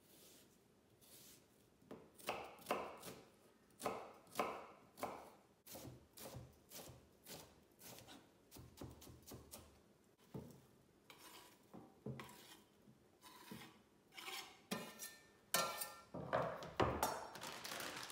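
Kitchen knife chopping vegetables on a cutting board, in irregular strokes, with louder knocks near the end.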